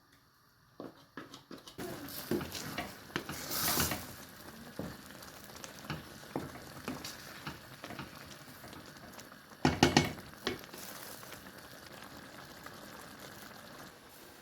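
Food sizzling in a cooking pan, a steady hiss with scattered small clicks. Two louder clattering spells come about four seconds in and about ten seconds in.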